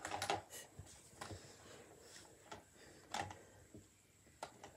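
A few faint, scattered clicks and light knocks, several close together at the start and then single ones every second or so.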